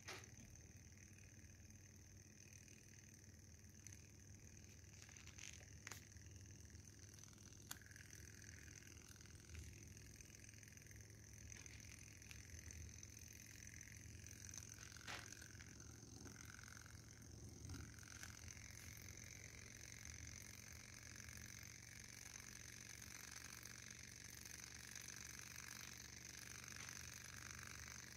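Near silence: a Kontax Manson-type hot air engine running very quietly and steadily, with a few faint single clicks.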